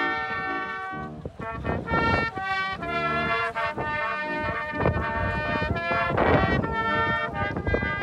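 A small brass band of cornets, euphonium and tuba playing a tune in held chords, with short gusts of wind buffeting the microphone.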